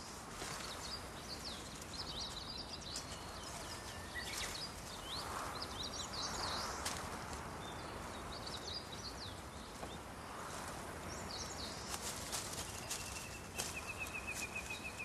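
Quiet marshland ambience: small birds chirp and twitter on and off, over a soft even background hiss, with a few faint rustles and clicks. Near the end a steady high trill runs for about two and a half seconds.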